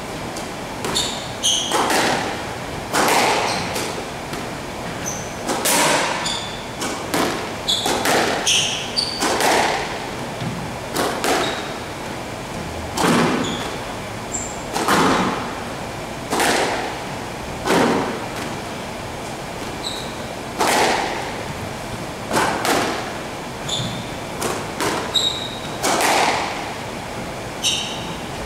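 Squash rally: the ball is struck by racquets and smacks off the court walls every second or two, each hit echoing in the enclosed court. Brief high squeaks of shoes on the wooden floor come between the hits.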